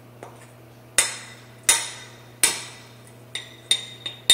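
A ceramic bowl knocked against the rim of a stand mixer's stainless steel bowl to shake the last of the flour out: three sharp, ringing knocks about three-quarters of a second apart, then two lighter ones and a quick flurry of taps near the end.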